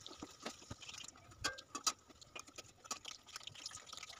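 Faint, scattered pops and ticks of hot oil crackling around batter-coated jute-leaf fritters frying in a steel kadai, mixed with light taps of a spatula against the pan.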